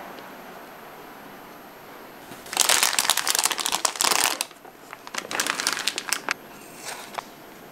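A plastic bag full of meringue crinkling as hands lift it out of a glass and work it, in two loud spells of crackly rustling, the first about two and a half seconds in and the second about five seconds in.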